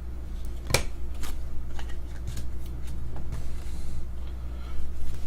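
Trading cards being handled and flipped through by hand, with a few light snaps and clicks, the sharpest near the start, over a steady low hum.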